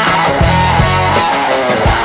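Rock intro music: guitar over a steady drum beat and bass.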